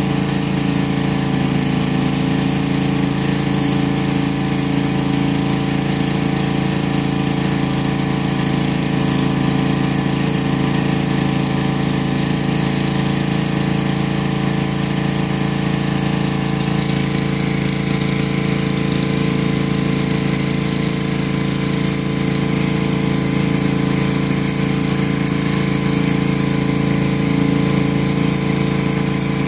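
Pressure washer engine running steadily at constant speed, with the hiss of a rotary surface cleaner spraying across concrete.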